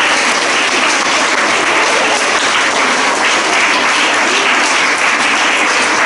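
Large audience of schoolchildren and staff applauding: sustained, dense clapping at a steady level.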